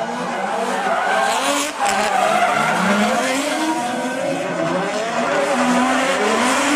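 Two drift cars sliding sideways in tandem, their engines revving up and down repeatedly over a steady tyre screech as the rear tyres spin and smoke.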